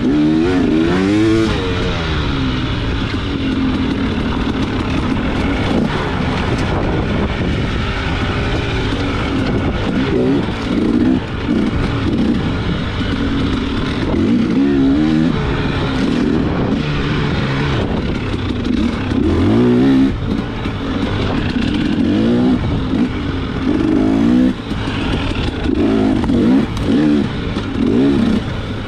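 Off-road motorcycle engine revving up and down again and again as the rider works the throttle through a trail, its pitch rising and falling every second or two over a constant rush of noise.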